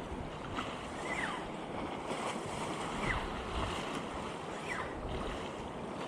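Sea surf washing against the rocks, with wind buffeting the microphone. A few short, falling chirps cut through now and then.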